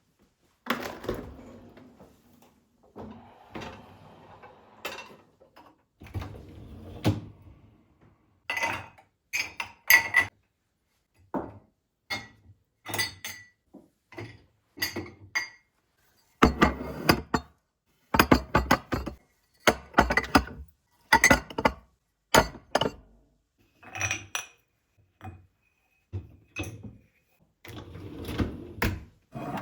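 Kitchen dishes and utensils being handled: repeated clinks and knocks of glass, ceramic and cutlery being set down and moved, some with a short ring, with softer rustling or scraping in the first several seconds.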